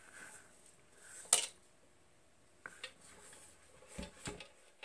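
Handling noise from the metal case of a Superior Instruments TC-55 tube tester being turned over and set down: one sharp clink about a second in, a few faint clicks, and two soft low thumps near the end as it comes to rest on the bench.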